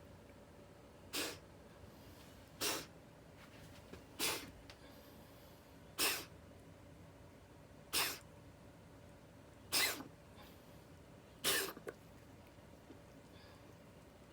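A cat with asthma in a coughing fit: about seven short, hoarse hacking coughs, one every one and a half to two seconds, stopping about two-thirds of the way through. The owner takes these coughs for feline asthma.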